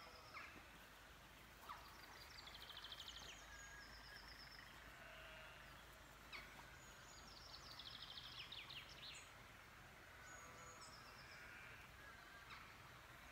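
Faint songbirds singing outdoors: repeated rapid trills and short high whistles over a low, steady hum.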